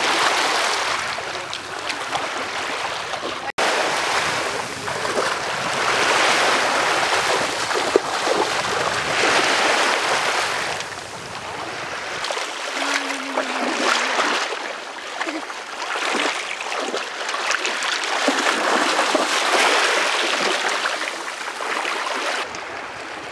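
Shallow seawater swishing and splashing around legs as someone wades in, with small wavelets washing over the pebbly shallows. The sound comes in uneven surges every second or two.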